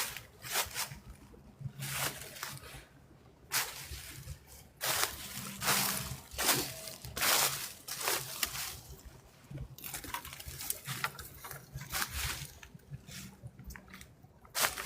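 Footsteps crunching and rustling through dry fallen leaves, in irregular steps about one a second.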